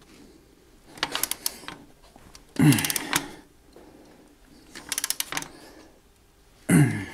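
Socket ratchet clicking in four short runs of rapid clicks, about every two seconds, as the nut on a GeoLock foundation wall-anchor rod is tightened against its steel wall plate. Two of the runs open with a brief falling creak.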